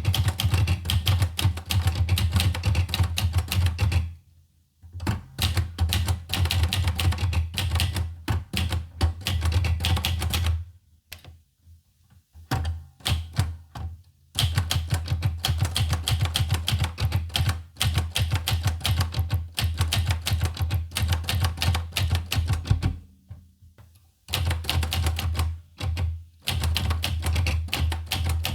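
Olivetti Lettera 25 manual portable typewriter being typed on: fast, dense key strikes, broken by short pauses about four seconds in, around twelve seconds and around twenty-three seconds.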